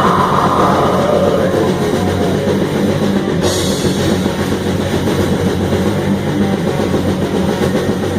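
Live black metal band playing an instrumental passage: loud, dense distorted guitars and drum kit, with a bright cymbal wash coming in about three and a half seconds in.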